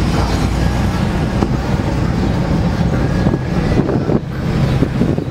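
Car engine running steadily while driving, with road noise.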